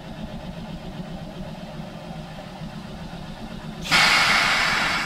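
CPR 2024 steam locomotive standing with a steady low hum, then about four seconds in a loud hiss of released air or steam bursts out suddenly and lasts just over a second before cutting off.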